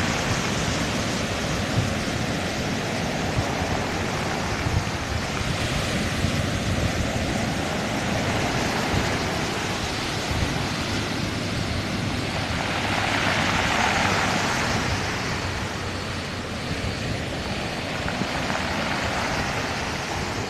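Sea waves breaking and washing up a pebble beach: a steady surf hiss that swells to its loudest about two-thirds of the way through. Wind on the microphone adds an uneven low rumble.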